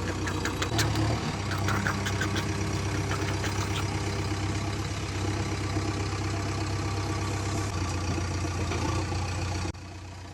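Heavy vehicle engine idling with a steady low hum. It shifts slightly in pitch about a second in and again later, then drops much quieter just before the end.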